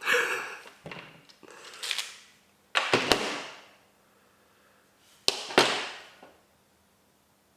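Sharp clicks and clacks of small gel blaster gearbox parts being handled and worked apart, each followed by a brief rattling fade, in four or so bursts with a quiet stretch near the end.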